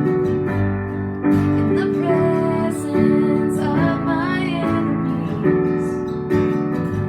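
Music: a strummed acoustic guitar, with a new chord struck about every second.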